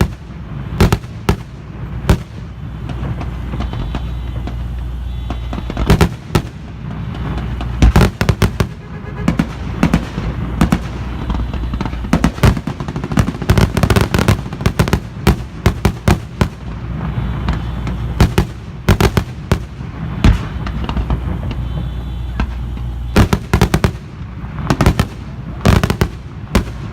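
Many loud bangs of blank gunfire from a mock air raid, at irregular intervals and sometimes in quick strings of several shots, over a steady low rumble.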